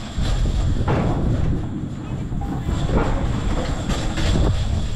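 Low rumble and rattle of a Garbrick Merry Mixer, a scrambler-type spinning ride, heard from a rider's car in motion, mixed with wind buffeting the microphone. It swells and eases irregularly as the car swings.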